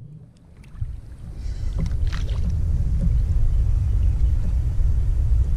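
Steady low rumble of wind and water around a sit-on-top kayak. It drops away for about a second at the start, and a brief hiss comes about two seconds in.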